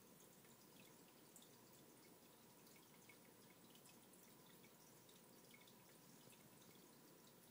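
Faint aquarium water sound: a low steady hiss with a faint hum, dotted with scattered tiny drips.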